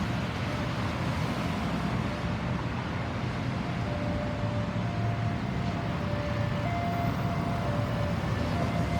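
Steady road traffic: vehicle engines and tyre noise as a low rumble. A faint thin tone steps between two pitches every second or two.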